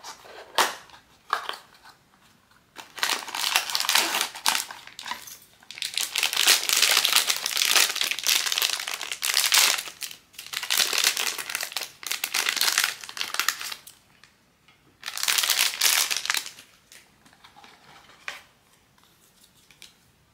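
Blind-box packaging crinkling and crumpling as it is handled and opened by hand. A few short rustles come first, then long stretches of crinkling with brief pauses, and a last burst near the end.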